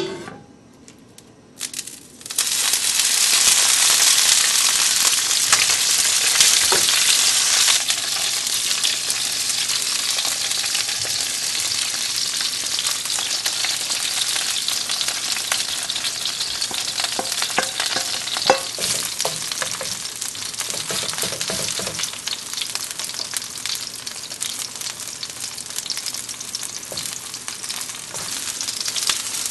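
Green onion pancake frying in hot vegetable oil in a non-stick pan: a loud sizzle starts about two seconds in, eases a little after several seconds, and carries on as a steady frying crackle, with one sharp click about halfway through.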